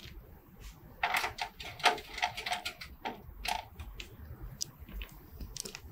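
Screwdriver and small metal screws clicking and scraping as a motherboard is screwed down into a PC case: a run of irregular sharp clicks starting about a second in, then fainter ticks.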